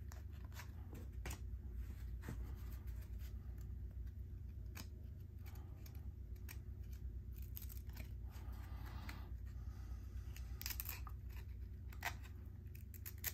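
1993 SkyBox trading cards being handled and flipped through: scattered light clicks and rustles of card stock at irregular intervals, over a steady low hum.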